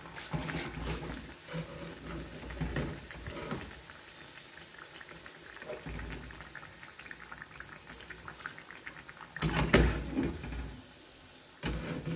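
Pearl-millet and sesame tikkis sizzling as they deep-fry in hot oil in a metal kadai, with the metal slotted spoon knocking and scraping against the pan. The loudest knocks come about ten seconds in, and again just before the end.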